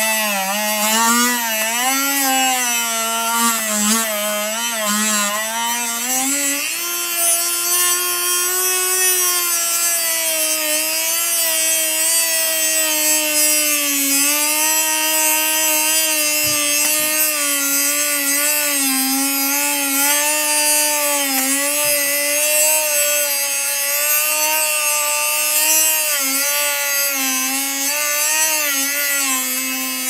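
Dremel rotary tool's cut-off wheel grinding into a steel disc padlock, throwing sparks: a steady, high motor whine that wavers up and down as the wheel bites into the metal. The pitch steps up about six seconds in and stays there.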